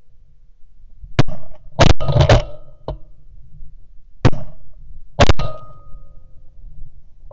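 A volley of shotgun blasts at geese flying overhead, about six sharp shots in quick clusters from about a second in to about five and a half seconds in.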